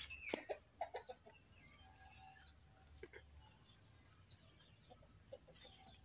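Faint, scattered short animal calls: a few brief low notes and several quick high chirps, spread out with quiet between them.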